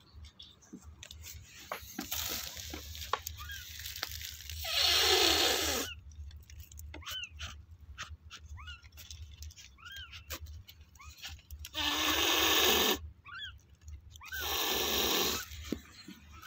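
A cat hissing in three long bursts of about a second each, with short high squeaks between them.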